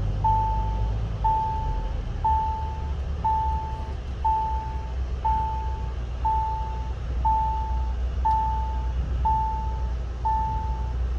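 A vehicle's electronic warning beeper sounding one steady beep about once a second, each beep just over half a second long, over the low rumble of a car's engine and road noise.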